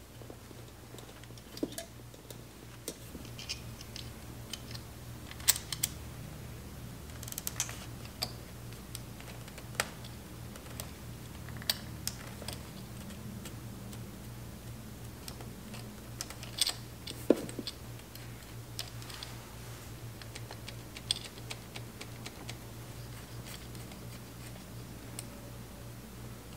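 Scattered small metallic clicks and taps of hands fitting a throttle pull cable onto a motorcycle carburetor's throttle linkage, over a steady low hum. The sharpest clicks come about five seconds in and twice in quick succession around seventeen seconds.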